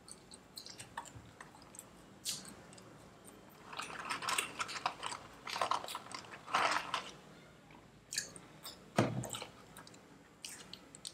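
Chewing of McDonald's french fries, with the paper fries carton rustling as fingers dig into it midway. One sharp thump about nine seconds in.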